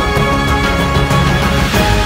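Instrumental background music with held tones over a steady beat.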